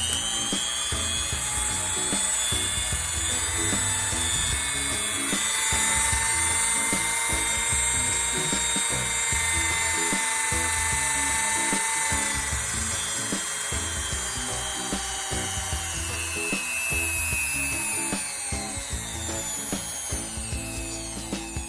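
Electric mini rotary tool running at high speed with a steady high-pitched whine. Over the last few seconds the whine falls in pitch as the motor slows down.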